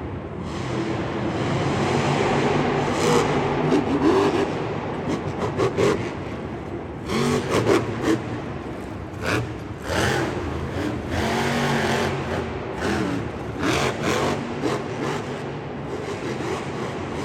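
Monster truck engine revving up and down, with several sharp bangs through the middle of the stretch.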